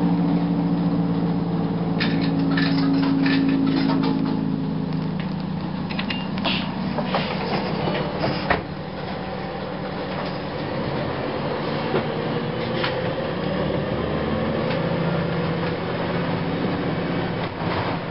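Cabin sound of a 2004 Gillig Phantom transit bus under way, its Cummins ISM diesel and Voith transmission running. A steady low drone fades about five seconds in, body rattles and clicks follow, and then a slowly rising whine comes from the drivetrain.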